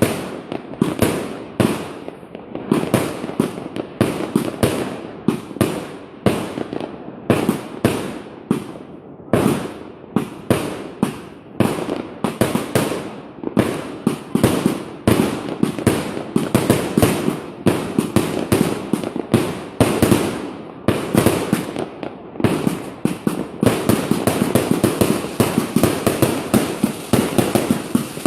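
A large consumer fireworks cake firing shot after shot, several bangs a second. About three quarters of the way through it turns into a dense, continuous crackle.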